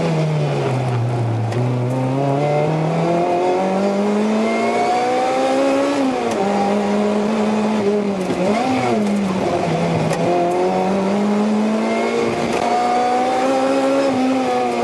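Supercharged 2ZZ-GE 1.8-litre four-cylinder of a 2007 Lotus Exige S with a Lotus Sport stage 3 muffler, heard from inside the cabin under hard driving: the engine note falls off under braking, climbs with the revs and steps with each gear change, with a quick throttle blip about nine seconds in.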